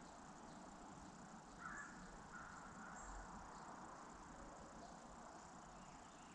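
Faint woodland ambience, close to silence: a steady high insect hum, with a couple of brief faint chirps about two seconds in.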